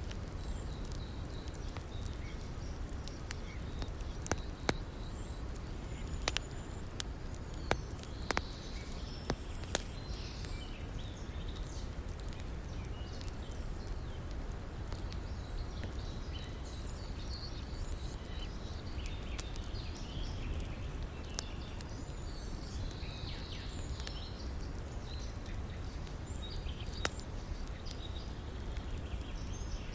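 Campfire crackling with scattered sharp pops, most of them in the first third, over the steady rush of a river, with birds calling now and then.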